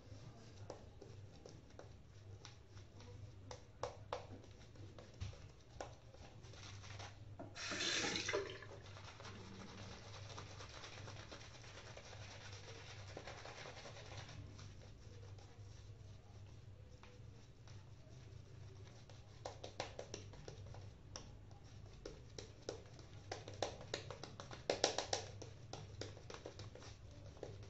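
Razor blade scraping through shaving lather and stubble in short, scratchy strokes during a traditional wet shave. Two strokes stand out as louder and longer, about a second each, around 8 seconds in and near the end, over a steady low hum.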